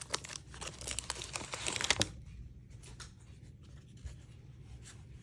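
A trading-card pack's wrapper being torn open and crinkled, loudest for the first two seconds, then fading to faint rustling and ticks as the cards are handled.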